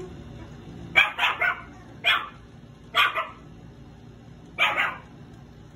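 Three-month-old Shih Tzu puppy barking at its reflection in a mirror: short, high-pitched yappy barks, a quick run of three about a second in, then single barks about once a second and a last pair near the end.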